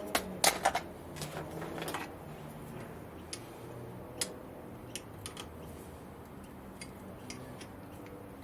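Light clicks and taps of hand work on metal in a workshop: a quick cluster of sharp clicks in the first two seconds, then scattered single ticks over a faint low hum.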